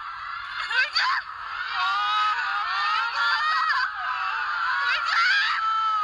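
A crowd of fans screaming without letup, many high-pitched voices at once, with sharp single shrieks rising above the rest about a second in and again near the five-second mark.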